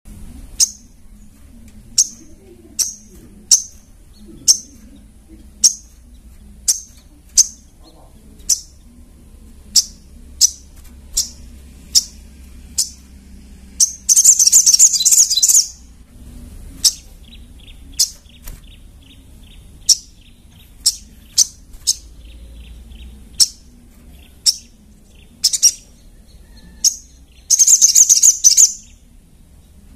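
Little spiderhunter (sogon) calling: sharp, high single chips about once a second, broken twice, about halfway through and near the end, by louder rapid runs of notes lasting a couple of seconds each.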